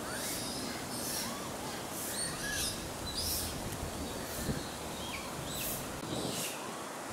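Outdoor ambience with birds chirping: short high chirps and brief falling whistles repeating throughout, with a single short low sound about halfway through.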